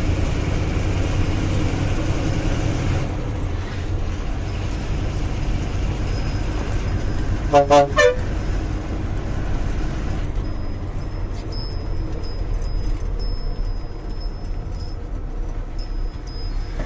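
A vehicle horn gives a quick burst of short toots about halfway through, over the steady low rumble of idling engines and road traffic.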